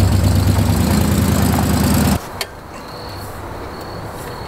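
Engine of a 1978 Chevy K30 pickup carrying a truck camper, running loud and steady as the truck pulls in on gravel, then cut off abruptly about two seconds in, leaving a quieter outdoor background with a single click.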